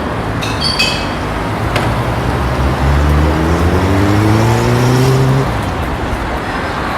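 City street traffic: a steady wash of road noise, with a nearby vehicle's engine rising in pitch as it accelerates for a couple of seconds around the middle.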